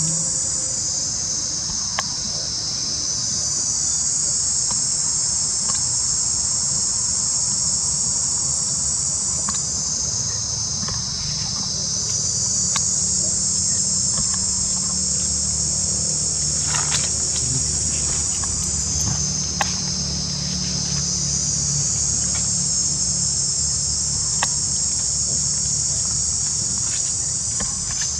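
A dense, high-pitched insect chorus that swells and fades in slow waves about every eight seconds, with a few faint ticks scattered through it.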